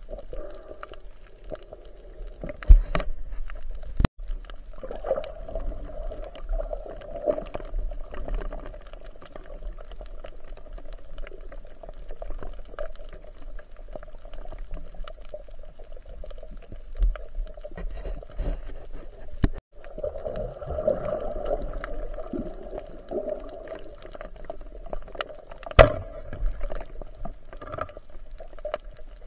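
Water gurgling and sloshing, heard underwater through a camera's waterproof housing, with a few sharp knocks; the loudest knocks come about three seconds in and near the end.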